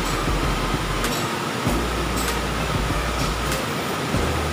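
Shallow rocky stream rushing steadily over rocks, with a few light ticks.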